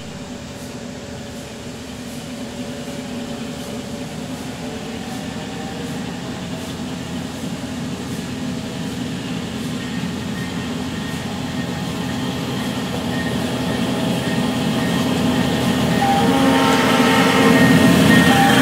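Ride-on scale model locomotive EJ&E 522, a diesel-outline engine pulling a freight train, running toward the listener along the track: a steady motor hum and wheel noise that grow louder as it approaches and are loudest as it draws level near the end.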